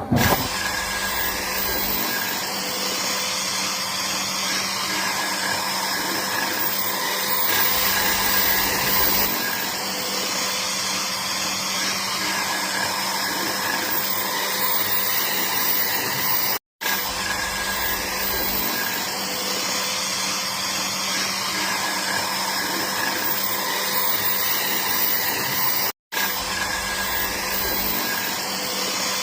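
An electric power tool running steadily, a continuous motor whine with a steady hum, breaking off for an instant twice.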